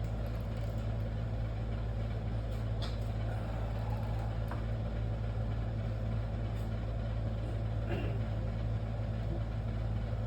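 Steady low mechanical hum with a few faint light taps.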